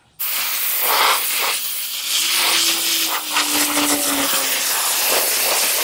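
Electric pressure washer's water jet spraying against concrete steps: a loud, steady hiss that starts abruptly just after the beginning.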